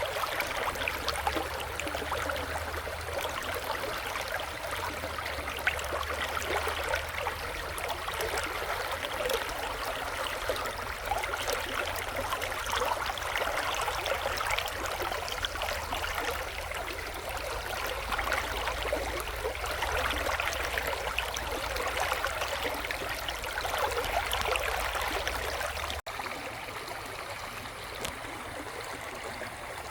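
Shallow river babbling and trickling over stones, a steady bright splashing. About 26 seconds in the sound changes abruptly: it gets slightly quieter and the low rumble underneath stops.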